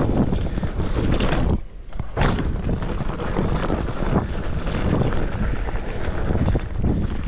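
Wind buffeting the microphone during a mountain bike ride, with a few knocks and thuds from the bike over rough trail. The noise drops briefly about one and a half seconds in, then comes straight back.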